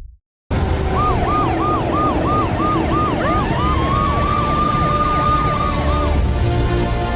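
Emergency vehicle siren cycling quickly up and down about twice a second over a heavy low rumble of traffic, with a second siren wailing up and holding from about halfway through. It starts suddenly after a brief silence and fades near the end.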